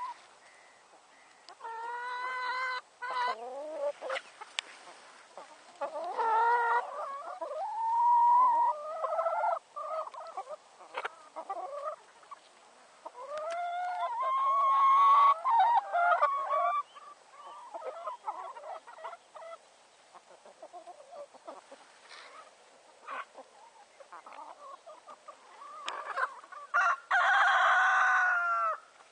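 A flock of hens, free-range and re-homed ex-battery birds, clucking and calling close by. Several long, drawn-out calls stand out, the longest two to three seconds, with quieter short clucks between them.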